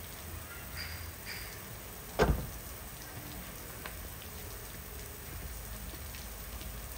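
Steady rain falling, with one sharp thump about two seconds in.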